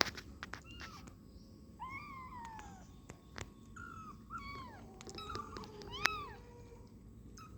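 Young kittens mewing: a run of about six high, arching mews, the longest and clearest about two seconds in, with a few sharp clicks among them.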